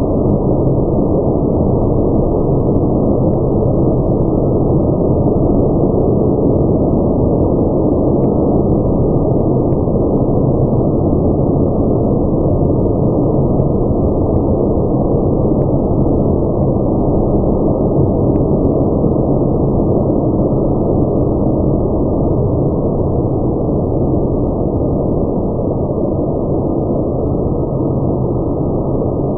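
Automatic car wash running: a loud, steady rushing noise with no clear pitch or rhythm.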